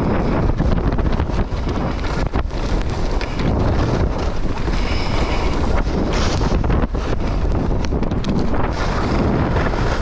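Wind buffeting a GoPro's microphone on a ski run, a loud, steady rumble, with the scratchy hiss of skis on snow.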